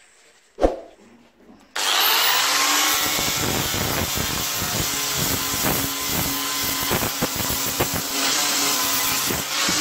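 A single knock, then about two seconds in an angle grinder with a sanding disc starts abruptly and runs steadily, sanding rust off a pedestal fan's metal base.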